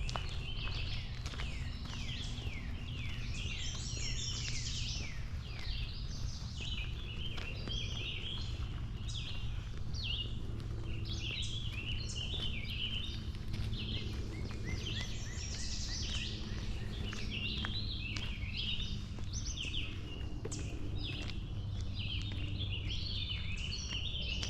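Many songbirds singing at once in a morning chorus: dense, overlapping chirps and trills, over a steady low rumble.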